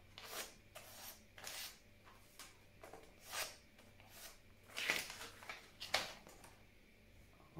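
Magazine paper being handled and folded by hand: a series of short, separate crinkles and rustles, about seven in all, with quiet gaps between them.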